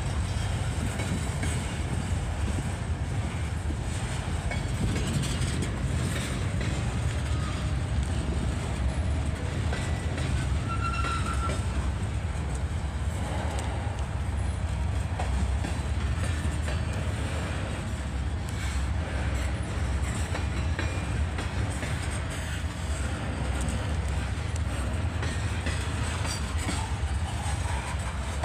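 Freight train of boxcars, covered hoppers, a tank car and gondolas rolling past: a steady rumble with the wheels clicking over the rail joints, and a brief high squeal near the middle.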